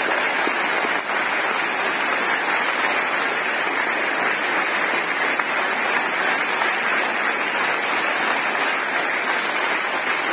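A large audience applauding: dense, continuous clapping that holds steady without a break.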